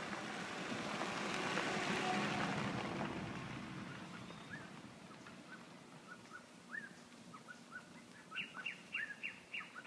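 Birds chirping: scattered short high chirps from about four seconds in, quickening into a rapid run of chirps near the end. Before them, a broad rushing noise swells and fades over the first few seconds.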